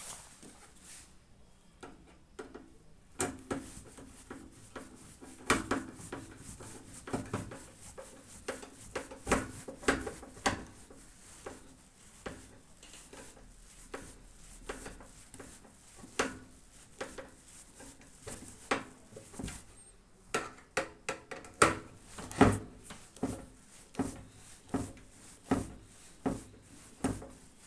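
Irregular clicks, taps and rubbing of metal parts being handled as a microwave oven's cooling fan is fitted into place, busiest in two spells with a quieter stretch between.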